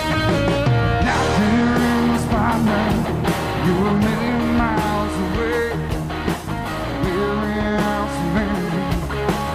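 Rock band playing live: electric guitar with bending notes over bass guitar and drums.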